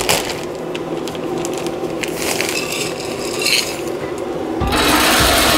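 Hardwood pellets rattling and the plastic bag crinkling as a metal cup scoops pellets out of the bag, with a louder rush of pellets near the end.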